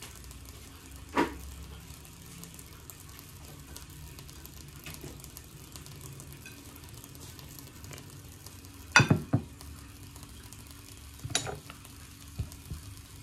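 Faint steady sizzle of pancakes frying in lidded pans, with a few sharp clinks and knocks of a bowl and plate being handled; the loudest is a double knock about nine seconds in.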